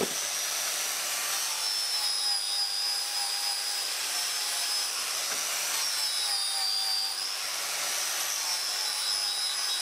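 Angle grinder running a Scotch-Brite disc against the face of a hardened steel hammer head, a steady high whine over an abrasive hiss, taking off the heat-treat colouring. The whine dips slightly a few times as the disc is pressed to the steel.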